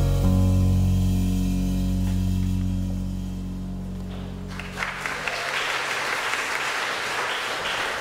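A church band of piano, drums, electric guitar and bass holds its final chord, which fades away; about four and a half seconds in, the congregation breaks into applause.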